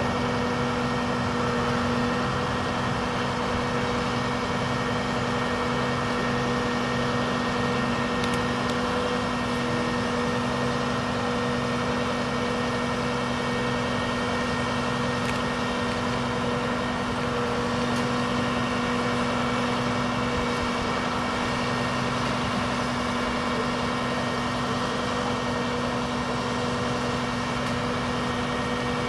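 Boom truck's engine running steadily, with a steady whine over it, as the crane winch hauls the tower upright.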